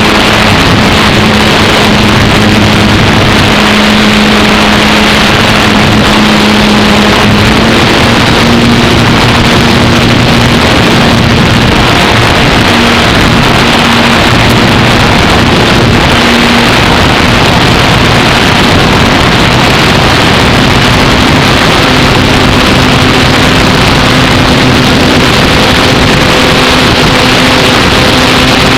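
Electric motor and propeller of an Apprentice S15e RC trainer plane in flight, heard from a camera mounted on the plane: a loud, steady drone under heavy rushing noise. The motor's pitch steps up about 8 seconds in and shifts again around 21 seconds.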